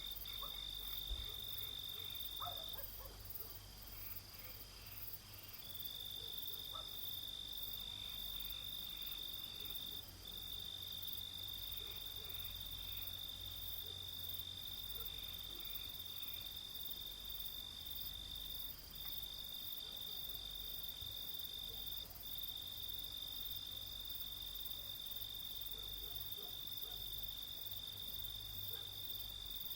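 Crickets chirping at night: a steady high-pitched trill that breaks off briefly a few times, the longest gap a few seconds in, with a fainter, higher rapid pulsing insect call behind it. A low steady hum lies underneath.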